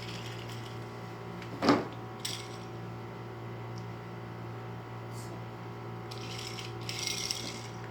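Toys being handled between names: a sharp knock about two seconds in and a brief rustle near the end, over a steady low hum.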